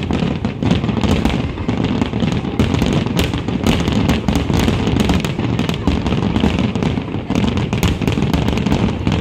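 Fireworks display with shells bursting in quick succession: a continuous low rumble of booms overlaid by dense sharp crackling.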